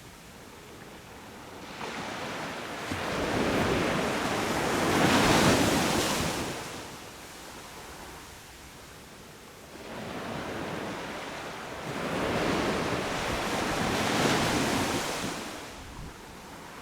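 Sea waves breaking on a beach: two waves swell up, crash and wash back, one peaking about five seconds in and the other near the end, with a steady surf wash between them.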